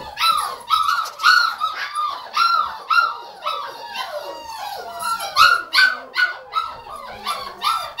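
Spanish Water Dog puppy barking over and over in short, high-pitched yips, about two a second, each yip falling slightly in pitch.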